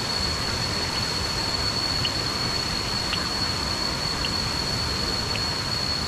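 Steady rush of falling water from waterfall cascades, with a continuous thin high-pitched whine above it and faint short chirps about once a second.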